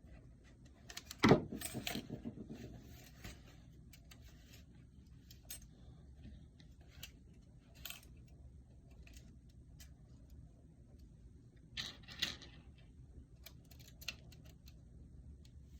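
Metallic clinks and clicks as a goalie mask's wire cage, its screws and a screwdriver are handled while the cage is screwed on. There is a louder jangly cluster of clinks about a second in, another near the twelve-second mark, and single light clicks in between.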